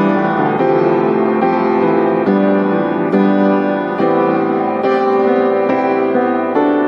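Background instrumental music: a piano-like keyboard playing held chords, with a new chord struck a little more than once a second.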